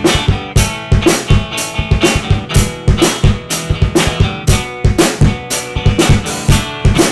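Background rock music with a steady drum beat, about two strokes a second, over pitched instrument lines.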